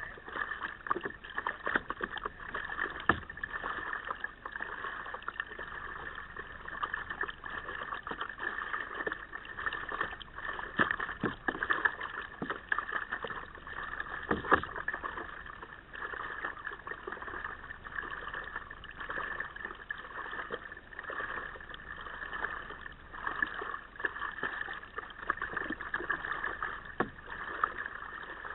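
Water gurgling and lapping against a moving kayak just below the microphone, with irregular splashes of paddle strokes.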